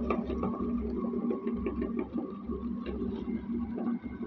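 Electric meat grinder running while it grinds bar soap, forcing it through the cutting plate: a steady motor hum with irregular small clicks and crackling as the soap is cut and pushed out.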